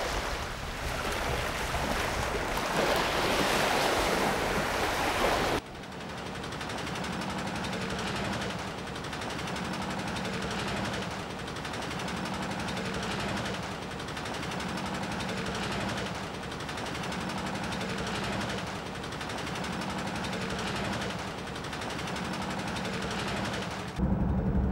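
Sea water splashing and churning against a wooden fishing boat's hull as a hooked tiger shark thrashes alongside. The sound cuts abruptly to a quieter wash that swells every couple of seconds about five seconds in, and to a deep low rumble near the end.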